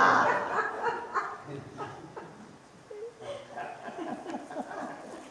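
Congregation laughing at a joke, the laughter fading over the first couple of seconds and giving way to a few scattered chuckles.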